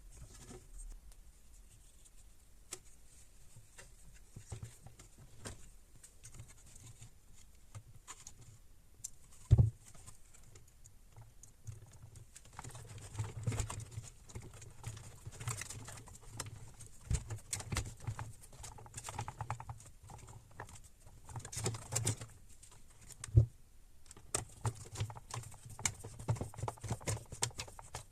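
Quiet, irregular clicks and taps of hard plastic parts and small tools being handled while a handheld vacuum cleaner is worked on, with two sharper knocks about ten and twenty-three seconds in.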